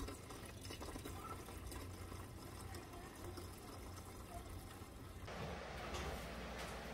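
Windshield washer fluid pouring faintly from a plastic bottle into a car's washer-reservoir filler neck; it stops about five seconds in and the background changes.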